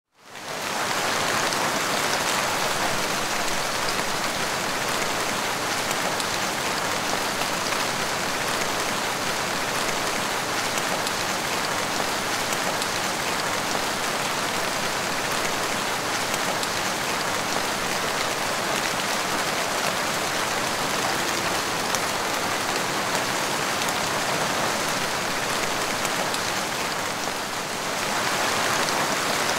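Rain falling steadily on a wet tiled porch floor, an even hiss of many drops splashing on the tiles. It fades in over the first half second.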